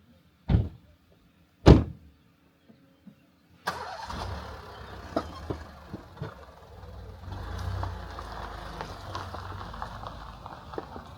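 Two heavy car-door thumps in quick succession, then from about four seconds a car running with a low rumble and small knocks and rattles.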